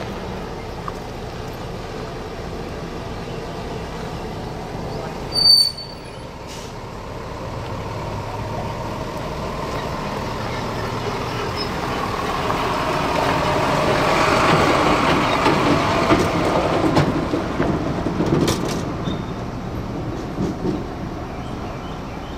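A heavy vehicle passing unseen: a steady rumble and hum that swells over several seconds, peaks after the middle and fades again. A short sharp sound stands out about five seconds in.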